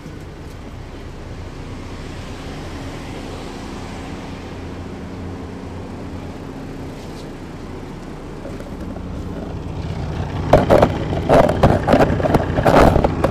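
Inside an MCI D4000 coach bus: its Detroit Diesel Series 60 engine running steadily, growing louder from about eight seconds in. Over the last three seconds a burst of loud, irregular knocks and rattles rises above the engine.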